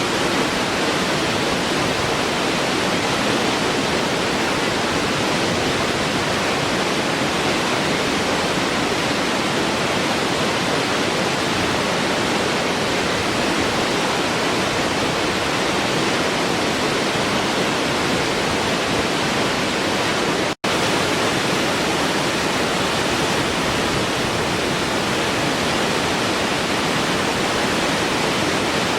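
Waterfall: steady rushing water with no change in level, cutting out for an instant about twenty seconds in.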